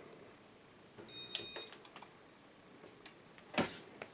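Controls of a 1987 Casablanca Cambridge ceiling fan being switched on to speed 1: a short buzzy tone with a click about a second in, then a sharper single click near the end.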